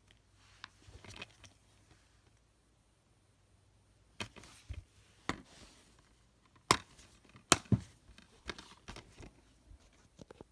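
A plastic DVD case and its packaging being handled: a scattered run of short clicks and knocks, the sharpest two clacks coming a little past the middle.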